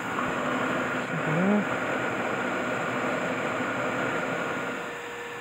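Steady background machine noise, with a short rising hum-like voice sound about a second and a half in; the noise drops somewhat near the end.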